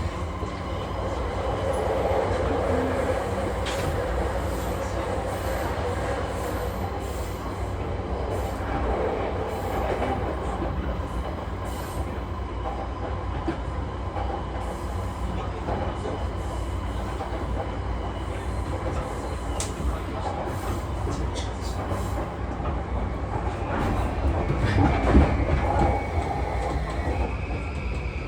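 Running noise heard inside a JR East E235-0 series motor car: a steady rumble of wheels on rail with scattered clicks from rail joints. Near the end a thin whine from the traction motors slides down in pitch.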